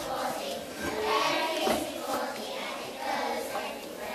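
A class of young children singing together as a group.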